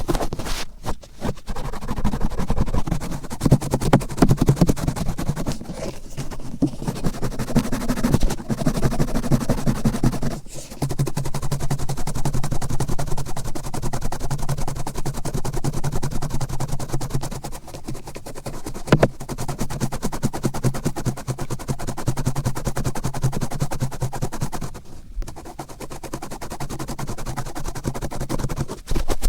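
Cotton swab rubbed and twisted firmly in an ear close to the microphone: dense, rapid crackling and scratching, with a few short pauses.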